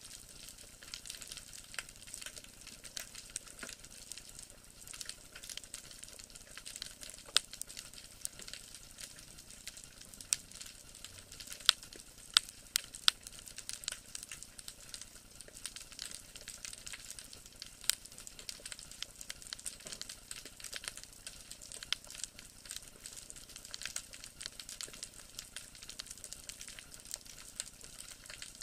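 Underwater ambience over a rocky seabed: a dense, steady crackle like frying, with a few louder sharp clicks around the middle.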